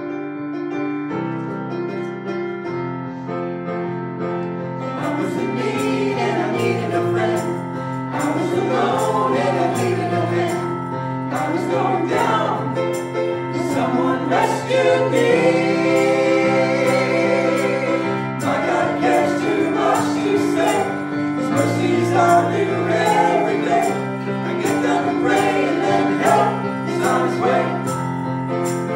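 Church worship team of several men and women singing a gospel song together into microphones over electric keyboard chords. The keyboard plays alone at first, and the voices come in about five seconds in.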